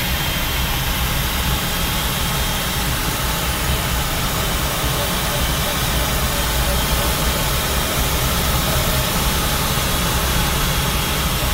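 Steady rush of air over a glider's canopy and fuselage in flight, heard from inside the cockpit as an even, unchanging roar with a low rumble.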